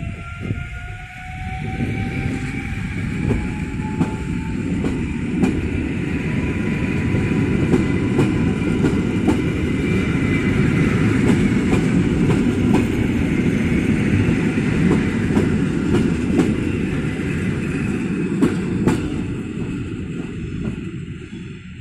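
Koleje Mazowieckie EN57AKM electric multiple unit departing and running past along the platform: a steady rumble of wheels on rail with clicks over rail joints. In the first few seconds a whine rises in pitch as it picks up speed. The rumble drops away near the end as the last car goes by.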